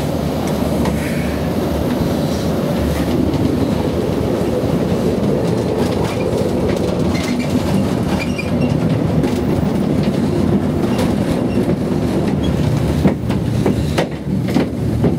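Steady rumble and clatter of a double monocable (DMC) gondola cabin, heard from inside the cabin as it runs out of the station on its two haul cables, with a cluster of sharp clicks near the end.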